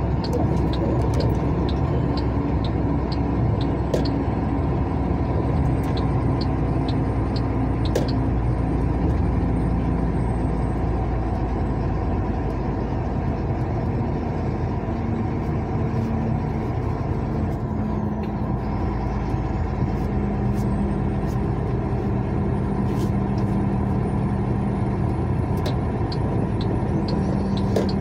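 Steady running noise of a vehicle driving along a highway: a low engine hum and road noise, with light ticks and rattles throughout. The engine note drops a little about halfway through.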